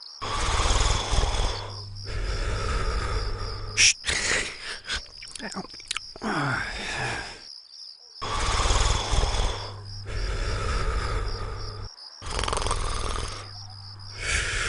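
Cartoon snoring sound effect: long snores repeated every couple of seconds, with a stretch of snorts, clicks and a falling comic pitch slide in the middle.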